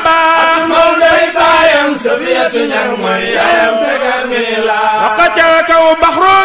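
Male voice chanting a Sufi zikr, a devotional praise chant, in long sustained phrases that slide between pitches.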